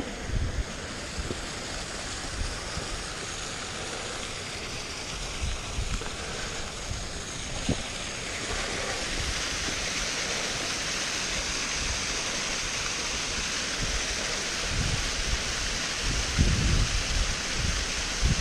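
Rushing water of a mountain beck's waterfall, a steady hiss that grows louder about halfway through. Irregular low buffeting on the microphone, strongest near the end.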